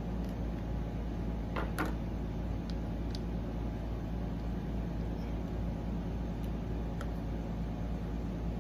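Small plastic clicks and ticks from handling the opened JBL Charge 5 speaker's plastic frame, the clearest a pair of clicks about two seconds in, over a steady low hum.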